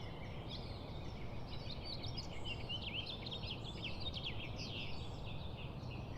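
Small birds chirping: many quick, high chirps, busiest in the middle, over a faint steady background noise.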